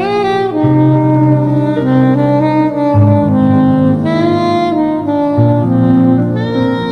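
Background instrumental music: a lead melody with sliding, wavering notes over low bass notes that change every second or two.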